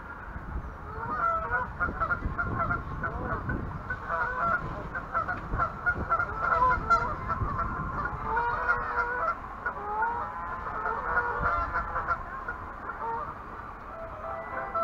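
Geese honking repeatedly, many short overlapping calls, over a low rumble.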